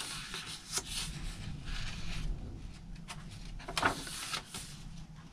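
Paper pages of a handmade junk journal being turned by hand. Soft rustling of the paper, loudest about a second in and again near four seconds in.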